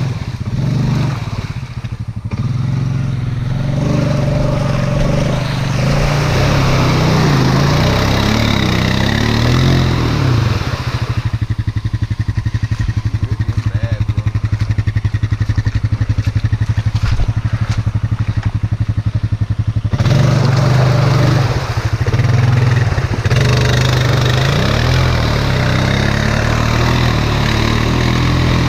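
Honda Rancher 420 ATV's single-cylinder engine running under load in deep mud, revving up and down repeatedly, with a steadier stretch in the middle, as the tires churn through mud and water.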